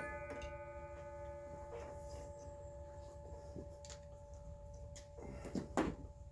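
Power saw just switched off, leaving faint steady ringing tones that die away, then several light knocks and clatters of handling in the workshop, the loudest a little before the end.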